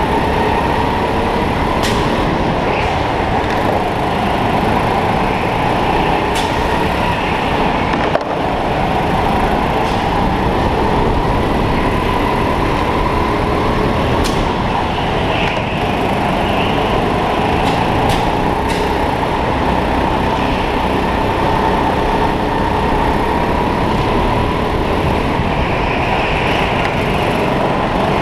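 Indoor racing kart running at race pace, recorded on board: a constant rush of motor, tyre and wind noise with a whine whose pitch slowly rises and falls as the kart speeds up and slows through the corners. A few sharp knocks come through along the way.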